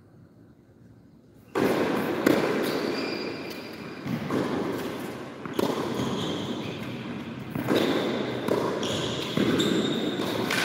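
Tennis rally on a hard court: racket-on-ball hits about every one and a half to two seconds, with sneakers squeaking on the court surface between shots, echoing in a large covered hall. The hitting and squeaking start abruptly about one and a half seconds in, after a quiet start.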